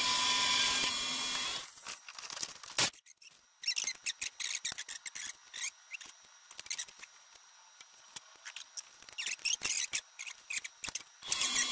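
Old vertical milling machine running with a steady hum, switched off and winding down about a second and a half in. A sharp click follows, then a run of light scrapes and ticks of hand work at the steel mill table, and the mill starts running again near the end.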